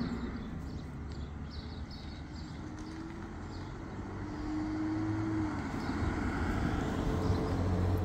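Motor vehicle engine running nearby, a low steady hum that grows louder through the second half.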